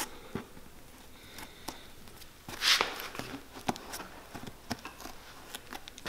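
A pointed steel blade scraping and picking at the worn leather sole and welt stitching of a cowboy boot: scattered short scratches and clicks, with a longer, louder scrape about two and a half seconds in.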